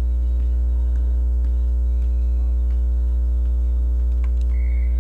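Loud, steady electrical mains hum with a low drone and its overtones, carried on the commentary audio, with a few faint ticks over it.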